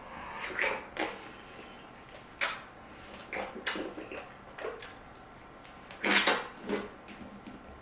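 Close-miked eating: wet chewing and mouth smacking on soft dragon fruit, in short uneven bursts, the loudest about six seconds in.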